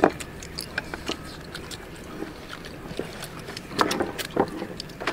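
A meal being eaten: scattered short clicks of chopsticks against steel bowls, and chewing, over a low background hum.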